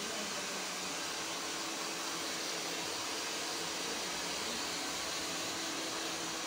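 Steady hiss of blowing air, with a faint low hum underneath.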